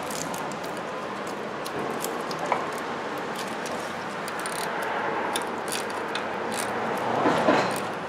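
Ratcheting wrench clicking in short, irregular runs as the rusty nut on a starter motor's main power lead is loosened, over a steady background hiss.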